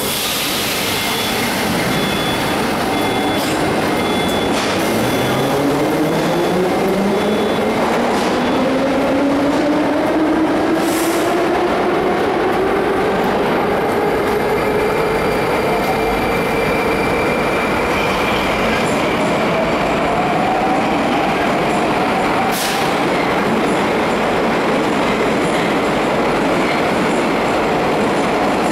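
Moscow Metro 81-760A/761A electric train pulling away from the platform: the whine of its traction inverters and motors starts low and rises steadily in pitch as it accelerates. An on-off high beep sounds over the first several seconds, and there are two brief sharp clicks.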